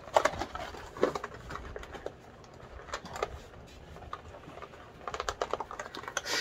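Cardboard and plastic toy packaging being handled: scattered taps, clicks and rustles, with a quicker run of clicks near the end.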